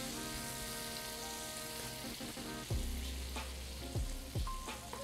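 Butter melting in hot oil in a non-stick wok, sizzling steadily as it is stirred with a spatula. Several sharp knocks come in the second half.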